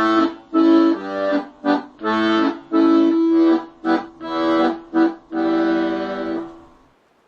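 Accordion playing a phrase of short, detached chords over one steady held note, ending on a longer chord that fades out near the end.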